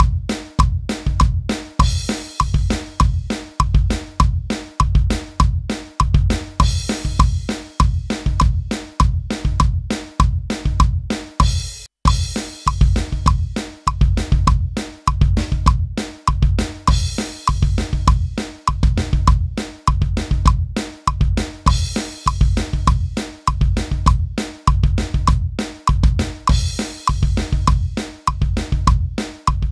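Roland electronic drum kit played in a fast punk beat: steady bass drum and snare strokes under a driving hi-hat, with a crash cymbal hit about every five seconds. The playing breaks off for an instant about twelve seconds in.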